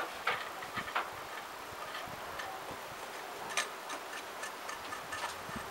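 Light, irregular metallic clicks and taps of bolts and a hand tool against a motorcycle's engine side cover as the bolts are put back in by hand, one click sharper than the rest about three and a half seconds in.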